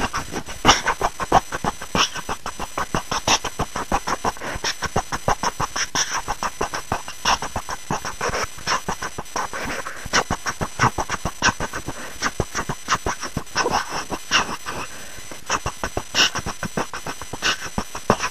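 Background music with a fast, busy beat of sharp percussive hits.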